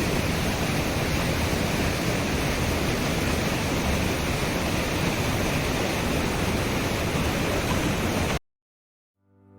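Waterfall pouring with a steady rush of water that cuts off abruptly about eight seconds in; music starts to fade in near the end.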